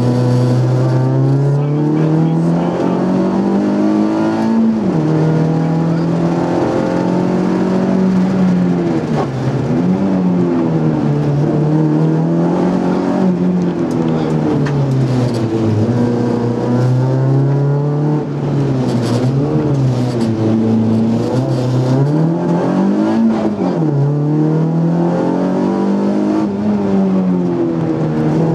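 Nissan Micra rally car's four-cylinder engine, heard from inside the cabin, driven hard on a stage. It revs up and drops back every few seconds through gear changes and the slowdowns for corners.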